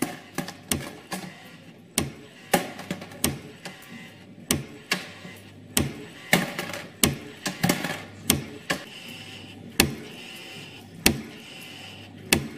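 CNC spring-coiling machine at work: its tooling strikes with sharp metallic clicks at an uneven pace, about two to three a second, as it forms wire into a coil spring, over a low steady hum.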